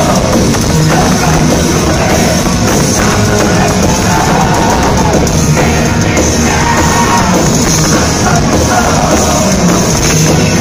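Heavy metal band playing live, loud and steady: electric guitars and drum kit, with a voice singing over them.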